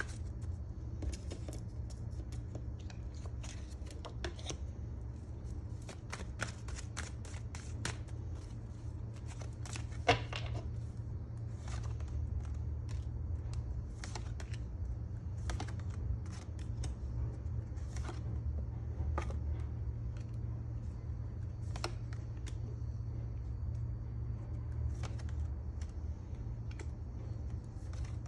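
Tarot cards being shuffled in the hands and dealt out onto a table: a stream of irregular soft clicks, flicks and taps, with one sharper knock about ten seconds in, over a steady low hum.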